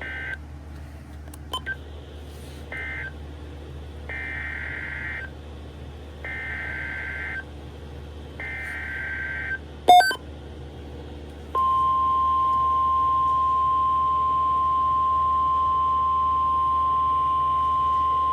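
Weather radio Emergency Alert System data bursts: two short buzzy two-tone bursts, then three longer bursts of warbling digital data about a second apart, the SAME header that opens a new alert. A sharp loud click follows about ten seconds in, then the long steady weather radio alert tone sounds from about eleven and a half seconds in.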